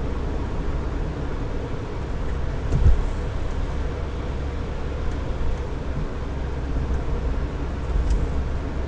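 Car driving on the road, heard from inside the cabin through a dashcam's microphone: a steady rumble of tyre and engine noise, with a low thump just under three seconds in and another near the end.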